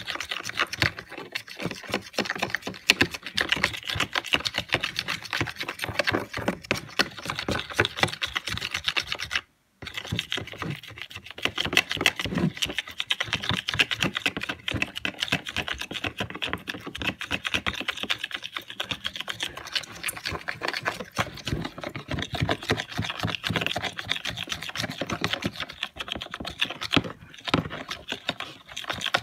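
Slime of glue, shaving cream, water and paint being stirred fast in a bowl: a rapid, continuous wet clicking and scraping. It cuts out briefly about nine and a half seconds in.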